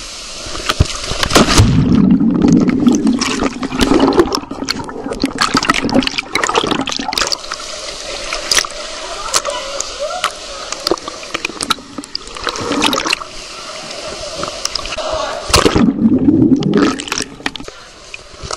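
Water sloshing and splashing right at a camera held at the surface of a lazy river. There are two heavier, lower surges, about two seconds in and again about sixteen seconds in, as the camera goes into the water.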